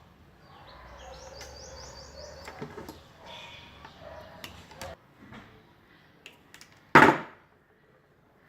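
Handling noise from electrical wiring work on a switch board: small clicks, taps and a quick run of light ticks, then one loud knock about seven seconds in.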